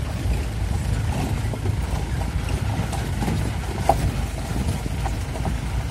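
Open safari jeep driving along a gravel forest track: steady low engine and road noise with small rattles, and one sharp knock a little before four seconds in.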